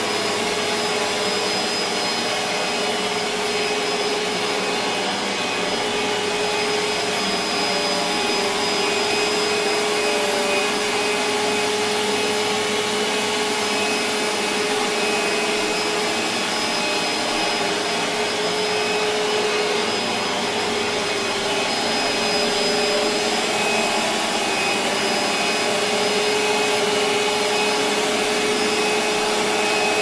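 Hoover Deluxe Elite Rewind upright vacuum cleaner, with its LG-made motor, running steadily while vacuuming carpet. A constant motor hum sits over an even rush of air.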